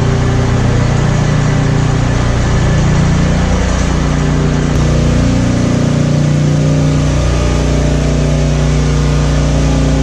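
Engine room machinery of a large bulk carrier under way: a loud, steady drone with several low hums layered under a constant roar.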